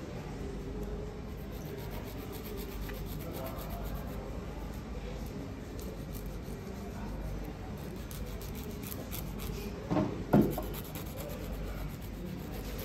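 Steady rubbing of a nail file working over fingernails, with two short knocks close together about ten seconds in.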